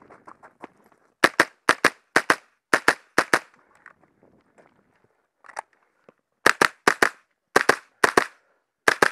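Smith & Wesson M&P 15-22 semi-automatic .22 LR rifle firing a fast string of sharp shots, mostly in quick pairs about a quarter second apart. There is a break of a few seconds in the middle with one fainter shot, then the rapid pairs resume.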